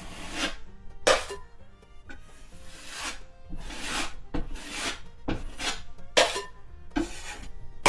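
Drywall knife scraping and spreading joint compound on a wall patch, about a dozen short rasping strokes as excess mud is squeezed out and wiped off.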